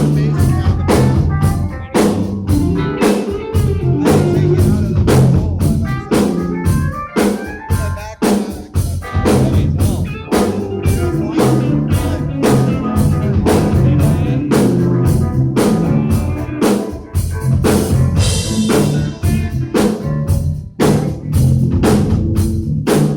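Live band playing a steady rock groove: a drum kit keeping a regular beat under bass and guitar, with a cymbal wash about three-quarters of the way through.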